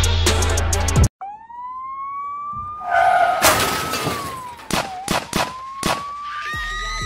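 A siren wailing, its pitch rising, holding, dipping and rising again, after beat music cuts off about a second in. A loud burst of noise comes about three seconds in and a few sharp knocks follow, and the music comes back near the end.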